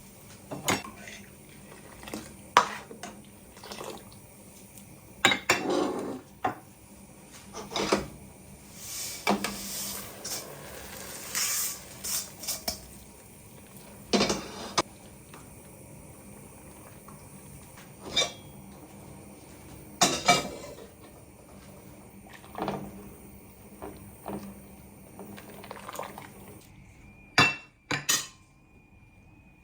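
Dishes, pots and metal utensils clinking and clattering in irregular knocks, as in kitchen work.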